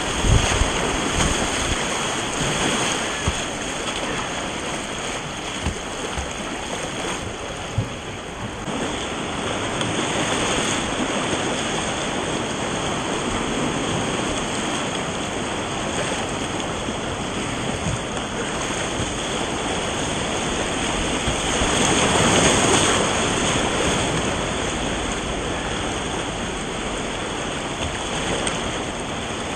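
Whitewater rapids rushing and splashing around a kayak, heard close up. The rush swells louder about three-quarters of the way through.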